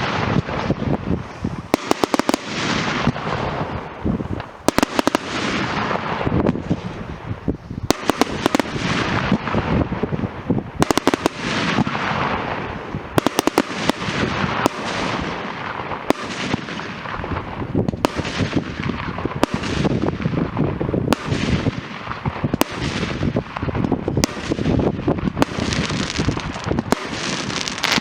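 Fireworks and firecrackers going off in quick succession: clusters of sharp bangs every second or two, with crackling and hiss filling the gaps.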